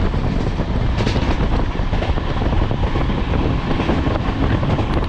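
A passenger train running along the track, heard from inside the coach: a steady, loud rumble.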